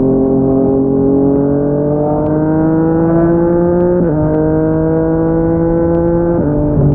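Yamaha MT-09's inline three-cylinder engine through a Yoshimura R55 slip-on exhaust, accelerating under way. Its pitch climbs steadily and then drops sharply twice, about four seconds in and again near the end, as it changes up a gear each time.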